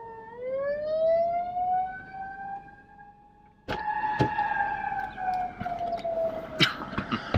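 A siren wailing: its pitch dips, then rises slowly, fades, and after a break comes back slowly falling. About four seconds in, a car door opens with a couple of sharp knocks, then there are further knocks and rustling as someone climbs into the seat.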